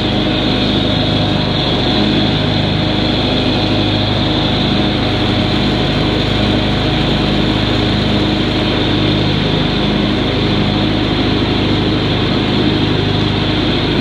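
John Deere riding lawn mower's engine running steadily while mowing, heard from the driver's seat.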